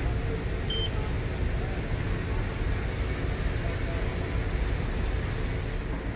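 Hyundai WIA VX-650/50 vertical machining center running, a steady low hum and rumble from its 50-taper spindle head and axis drives, with a short high tone about a second in.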